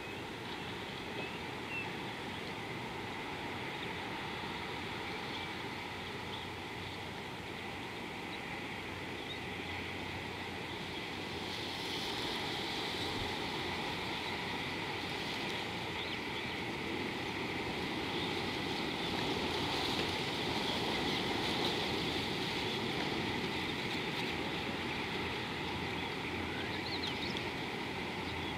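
Steady outdoor ambience: an even rushing hiss that swells a little about halfway through, with a few faint bird chirps.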